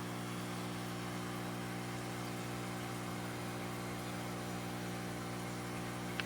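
Steady electrical hum, a constant low drone made of several even tones with no change in pitch, and one tiny click near the end.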